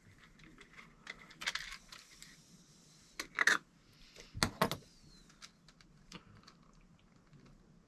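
Scattered small clicks and rattles of small parts being handled, with louder clatters about three and a half and four and a half seconds in.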